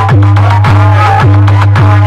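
Loud electronic dance music blasting from a stacked horn-loudspeaker DJ sound system: a deep steady bass under a booming kick that falls in pitch about twice a second, with a warbling melody line on top.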